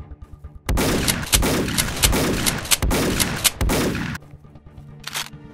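A rapid burst of gunfire sound effects, many shots run together over about three and a half seconds, starting just under a second in. Faint background music runs underneath.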